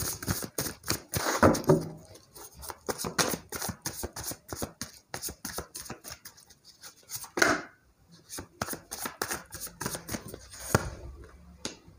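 A tarot deck shuffled by hand: rapid crisp clicks and slaps of the cards against each other, in quick runs with short pauses.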